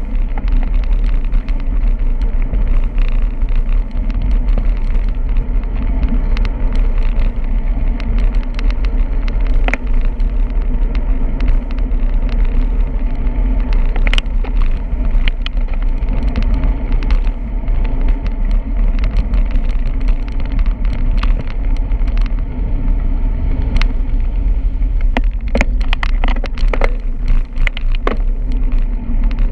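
Steady low rumble of riding a bicycle along a road: wind and road noise, with a few sharp clicks and rattles, most of them near the end.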